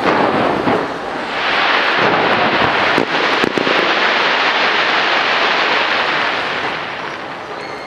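Fireworks: a loud burst at the start, then a dense crackling that swells about a second and a half in, with a few sharp bangs about three seconds in. The crackling fades near the end as the display dies out.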